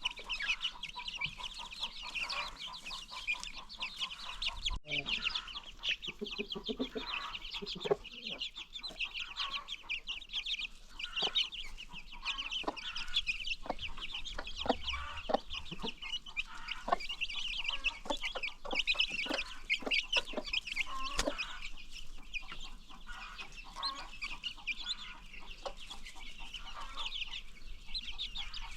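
Chickens clucking, over a dense, continuous high-pitched peeping of baby chicks, with scattered sharp ticks.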